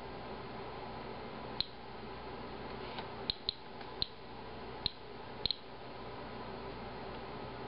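Inspector Alert handheld Geiger counter chirping at irregular, random intervals, about eight short high chirps, each one a detected radiation count. The rate is low, roughly one count a second, over a faint steady room hum.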